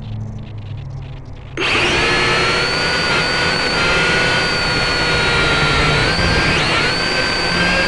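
Small camera drone's electric rotor motors spinning up suddenly about a second and a half in, after a low hum, then a loud, steady high-pitched whine with slight wobbles in pitch as it lifts off and flies. Heard from the drone's own onboard microphone, right beside the motors.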